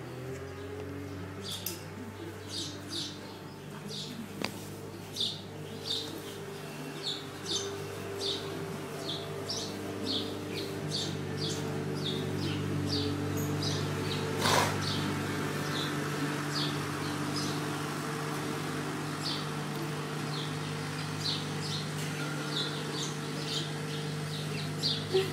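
Small birds chirping in short, high calls, scattered irregularly, over a steady low hum, with one louder noise about halfway through.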